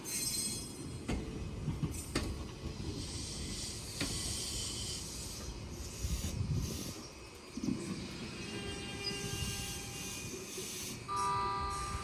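Train running past: a steady rumble with a few sharp clicks in the first seconds and a high hiss. A steady whine of several pitches comes in about two-thirds through and grows louder near the end.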